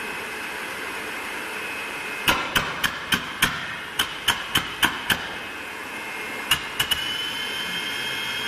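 Homemade turbocharger gas turbine running with a steady high whistle-like whine that starts rising steadily in pitch about seven seconds in, as the turbine kicks in and spools up. Between about two and five seconds in comes a run of about ten sharp clicks, roughly three a second, and three more just before the pitch starts to rise.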